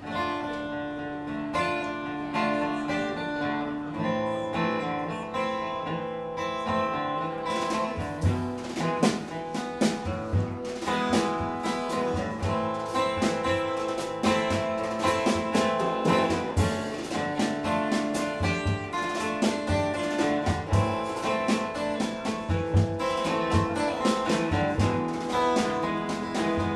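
Acoustic guitar strummed in a song, played live. About eight seconds in the playing grows fuller and more driving, with low beats.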